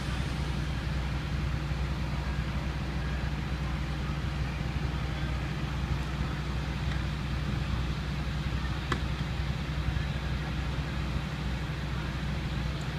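Fire-rescue truck's engine idling steadily, a low, even drone, with one sharp click about nine seconds in.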